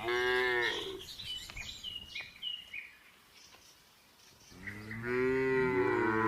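Cow mooing twice: a short moo that falls away within the first second, then a longer, louder moo starting about two thirds of the way in. Small birds chirp in between.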